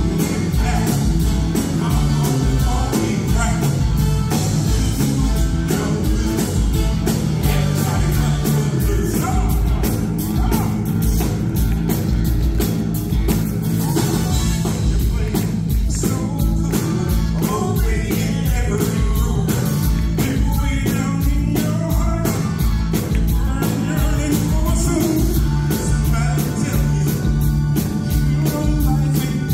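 A male singer performing a rock and roll song live with a backing band, with a steady driving beat throughout.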